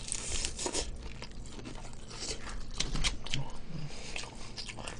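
Crispy-coated BBQ Golden Olive fried chicken being bitten into and chewed, with irregular crunches of the crust throughout.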